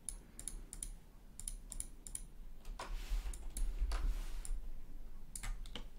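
Irregular light clicks and taps of a computer keyboard and mouse as software is operated.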